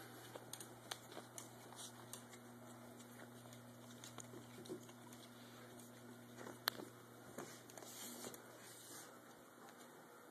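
Faint scattered clicks and taps from small dogs playing, over a steady low hum, with one sharp click about two-thirds of the way through.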